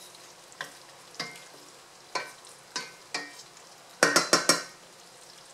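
Wooden spoon stirring a thick coconut-cream sauce in a stainless steel sauté pan, scraping and knocking against the pan every second or so, with a quick run of several louder knocks about four seconds in.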